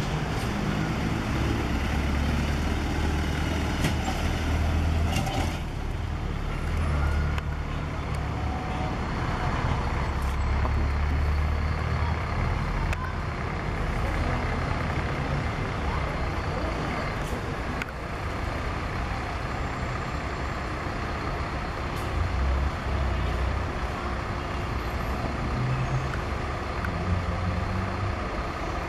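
Diesel bus engines running at low speed: a city bus pulling through, then an intercity coach maneuvering slowly, heard as a deep, steady rumble.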